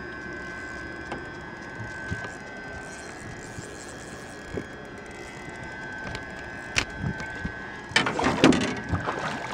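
Fighting a bass from a small boat: a faint steady whine under scattered light knocks, then a burst of louder knocking and handling noise about eight seconds in as the fish is brought to the boat.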